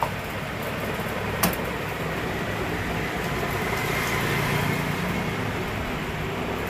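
Steady mechanical hum and whir in a small workshop, broken by two sharp clicks about a second and a half apart as loose wires are handled.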